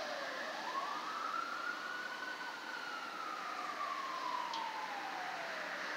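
Distant siren of an LAFD rescue ambulance in a slow wail, over the hum of traffic. The pitch dips just after the start, climbs slowly to a peak about two seconds in, then sinks slowly until near the end.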